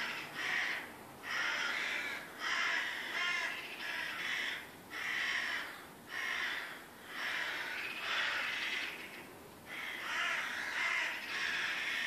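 A group of corvids calling harshly and over and over, about one caw a second, as they mob a cat up in the tree.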